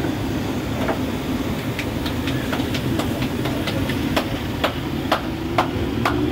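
Steady low roar of a gas cooking burner, with a run of sharp clicks about two a second starting around two seconds in and growing louder toward the end.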